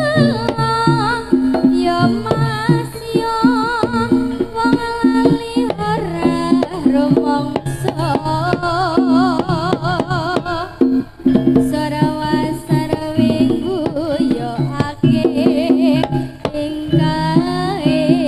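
Live Javanese campursari music for a jaranan dance: kendang hand drums keep up a dense rhythm under a wavering melody with strong vibrato and sustained low notes.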